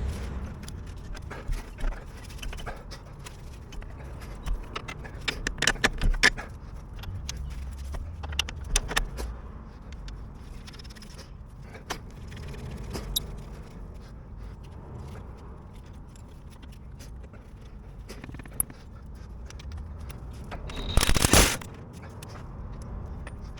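Metal tools and parts clinking, knocking and scraping during hands-on work on a car's CV joint, in irregular clusters, with one short, loud, noisy burst about 21 seconds in.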